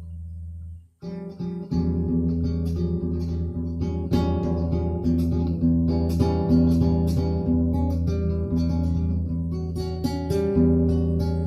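Acoustic guitar music, plucked notes over a steady low bass line; it cuts out briefly about a second in, then resumes louder.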